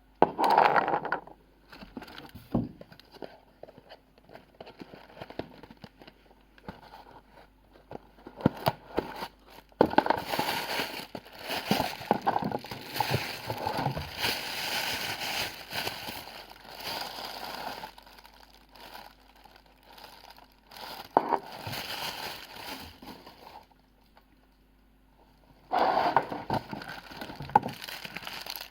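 Packaging being handled and unwrapped: irregular crinkling and rustling with sharp clicks, loudest just at the start and for several seconds in the middle, with a short pause near the end.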